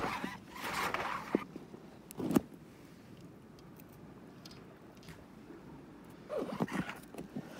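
Rustling and scraping of waterproof clothing rubbing right at the phone's microphone, with two sharp knocks about a second and a half and two and a half seconds in; it quietens in the middle and the rustling picks up again near the end.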